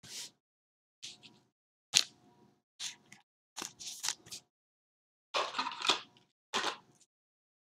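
Trading cards and plastic card sleeves being handled: a string of short rustles and sliding scrapes, with a sharper snap about two seconds in and a longer rustle near the five-to-six-second mark.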